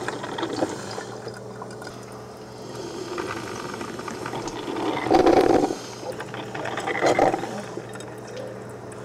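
Hand-held can opener cutting around the lid of a metal coffee can, a grinding with fine clicks, and two louder bursts about five and seven seconds in.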